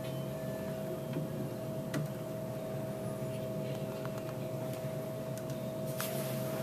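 Compact camera being screwed by hand onto a light box's mounting stand: a faint click about two seconds in and a short rubbing scrape near the end, over a steady hum.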